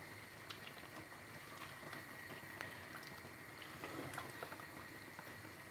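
Thick tomato sauce with meatballs simmering in a saucepan, faint soft bubbling and small pops, with the quiet squelch of a spatula stirring through it.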